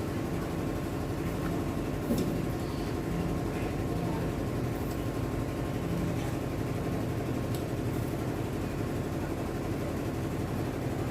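Steady low background hum, with a few faint clicks about two seconds in and again later.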